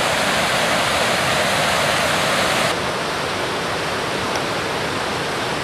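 Mountain waterfall rushing, a steady loud roar of falling water; the sound steps down slightly and abruptly about halfway through.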